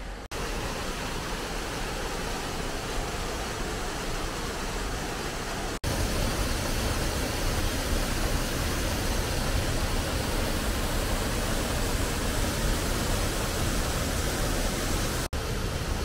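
Waterfall rushing steadily, a continuous noise of falling and churning water. The sound cuts out for an instant three times as the shot changes, and it is louder from about six seconds in.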